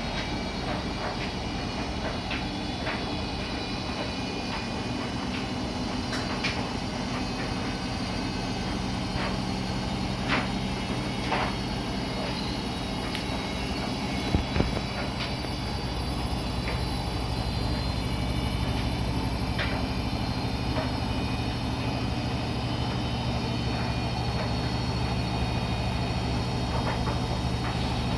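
Siemens iQ300 washing machine running on its spin cycle: a steady drum and motor hum with a few faint knocks. About halfway through, a deeper hum comes in and it gets slightly louder.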